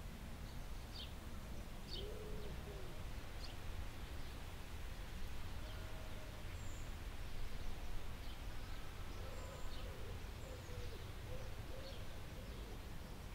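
Birds calling: short high chirps repeating about once a second, and a few low, arched calls about two seconds in and again around nine to eleven seconds, over a steady low hum.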